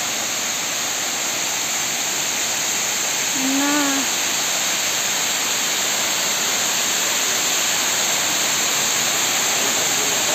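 Water overflowing a reservoir dam's spillway, cascading down the dam face into the pool below with a steady rushing noise. A short hum of a voice is heard once, a little under four seconds in.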